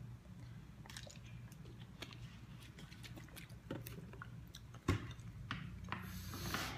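Faint scattered clicks and small handling noises over a low steady hum, with one sharper click about five seconds in and a short rustle near the end.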